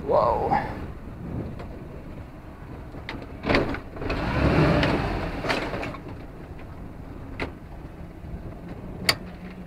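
Outboard motor running at low speed, with a swell of rushing noise from about three and a half to six seconds in and a few sharp knocks later on.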